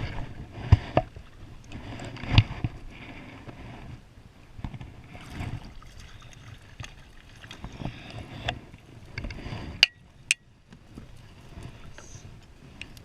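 Irregular knocks and scrapes aboard a kayak, with swells of water noise between them. Three sharper knocks stand out: about a second in, a little past two seconds in, and near ten seconds in.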